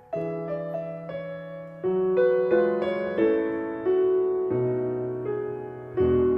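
Slow, gentle piano music: notes and chords struck about once a second, each left to ring and fade.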